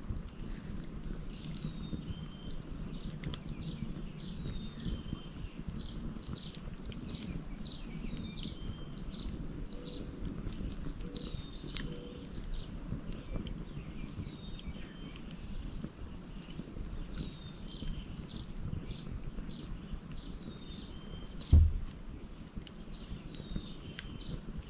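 Outdoor fire crackling with occasional sharp pops over a steady low rumble, while a bird repeats short falling chirps about once a second. A single low thump stands out a few seconds before the end.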